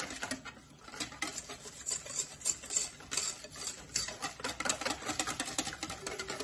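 Wire whisk beating an egg-and-milk batter in a stainless steel mixing bowl: a quick run of light clicks and scrapes of the tines against the metal, with a short pause just after the start.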